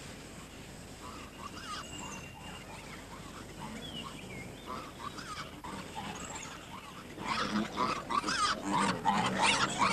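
Wild piglets squealing: faint short squeaks at first, then louder and more frequent squeals from about seven seconds in.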